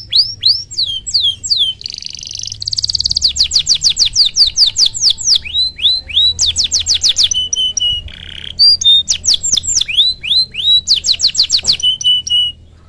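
Domestic canary singing a long, unbroken song: fast runs of repeated downward-sweeping notes, with short buzzy rasping notes and a held steady note. It stops just before the end.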